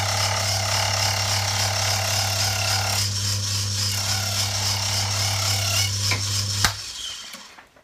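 Belt-driven harmonica reed milling machine running, its rotary cutter milling the profile into a brass reed blank while the table is fed by hand: a steady motor hum under a cutting noise that comes and goes. Near the end the machine stops with a click and the noise dies away.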